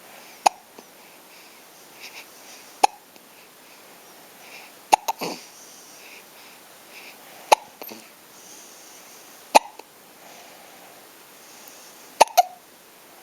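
Repeated hiccups: six short, sharp ones, about one every two seconds.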